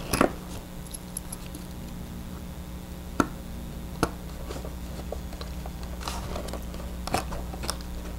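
Small screwdriver turning a tiny screw into a plastic servo arm, fastening the arm onto the servo: a few sharp clicks and light scraping over a steady low hum.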